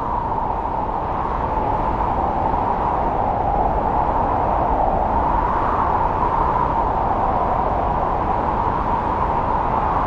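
Strong wind blowing through a snow-covered forest in a snowstorm: a steady rushing noise with a howling tone that wavers slightly up and down, over a low rumble.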